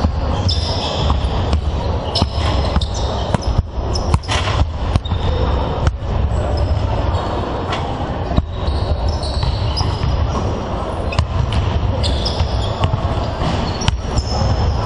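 Several basketballs bouncing on a wooden sports-hall floor, irregular thuds overlapping, with short high sneaker squeaks and a steady low rumble underneath.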